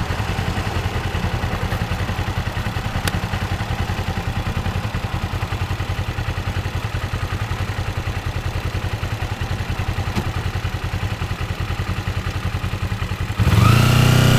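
Kawasaki Ninja 250's parallel-twin engine idling steadily at a stop, then revved and rising in pitch, louder, as the bike pulls away near the end.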